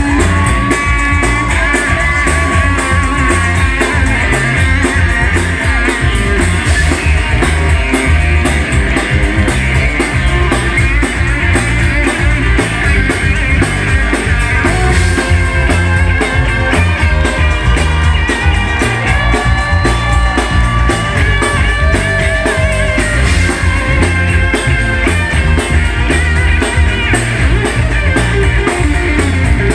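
Live band playing a guitar solo: a lead guitar plays long held, bending notes over a steady bass and drum groove.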